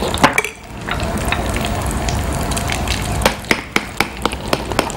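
Hot oil sizzling steadily as lentil batter dumplings (dahi bhallas) fry. A little past halfway, a spoon starts clicking rapidly against a bowl as the batter is mixed.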